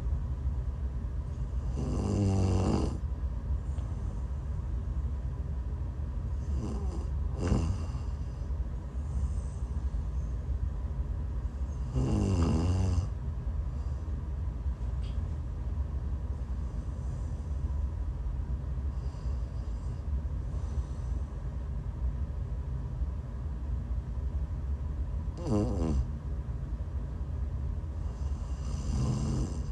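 A woman snoring in her sleep while sick: five separate snores about a second each, coming at uneven intervals with a long gap in the middle, over a steady low hum.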